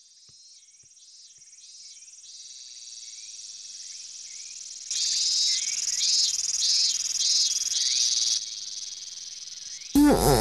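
Cicadas singing as a summer-heat effect: a high, shrill pulsing buzz with chirps repeating about every half second. It fades in, grows much louder about five seconds in, and drops back a little before the end.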